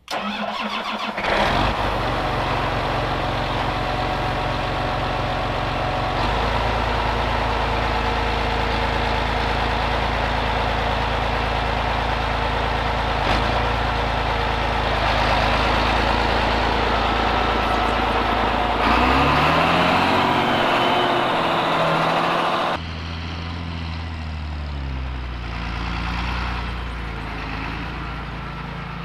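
John Deere 8120T tracked tractor's diesel engine starting up, catching about a second in, then running steadily. About two-thirds of the way in its pitch rises and falls, and near the end it is heard from farther off at a lower level.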